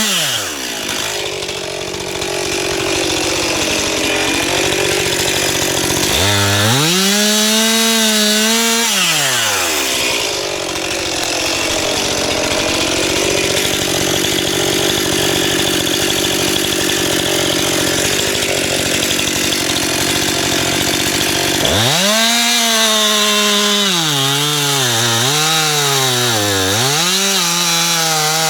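Stihl MS 261 two-stroke chainsaw running at high revs and cutting wood. Its pitch drops and climbs several times as the throttle eases and opens and the chain bites into the cut, with two short dips in revs near the end.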